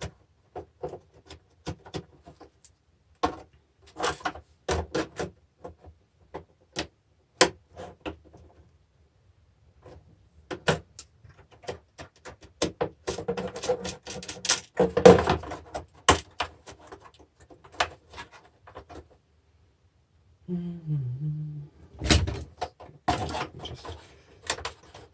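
Irregular metallic clicks, taps and knocks of hand tools working on the nuts and steel parts of a car battery charger being stripped for scrap, busiest about halfway through.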